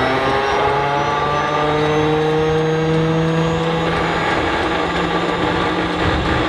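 Starter on the Stinson L-1's radial engine whining as it winds up, climbing in pitch over the first few seconds and then holding steady.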